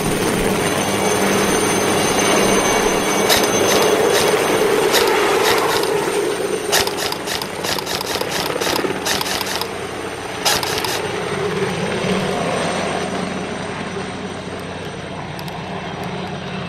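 Airsoft rifle, a Tokyo Marui SCAR, firing sharp cracking shots: a few single shots at first, then a quicker run of shots near the middle and a last short string, over a steady rumbling background noise.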